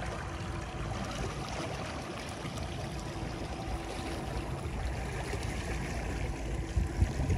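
An outboard motor runs steadily at trolling speed, a low hum under the wash of water along the boat, with a couple of low bumps near the end.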